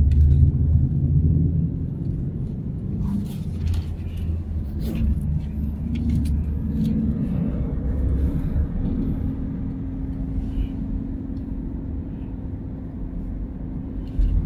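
Car driving, heard from inside the cabin: a steady low rumble of engine and road noise, a little louder in the first couple of seconds.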